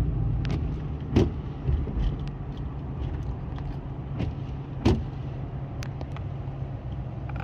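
2007 Ford F-150's 4.6 L two-valve V8 running smoothly under way, heard from inside the cab with road noise. No misfire is detected at this point. Two sharp knocks or clicks come about a second in and again near five seconds.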